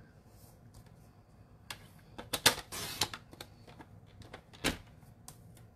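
Paper trimmer cutting cardstock: a sharp click as the blade carriage is pressed down, then the blade sliding along the track and slicing the sheet for about half a second. Another click follows near the end.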